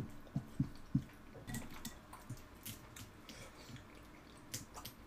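Wet, squishy chewing of tteokbokki rice cakes mixed with sauce-soaked cereal, with a sharp click right at the start and a few lighter clicks in the first second.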